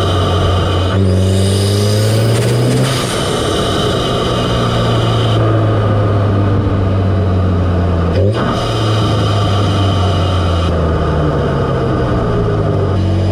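Audi S3's turbocharged four-cylinder engine running, heard up close at an APR carbon-fibre open intake as a steady induction drone. Its pitch rises slightly in the first few seconds, then holds, with a brief dip and recovery about eight seconds in.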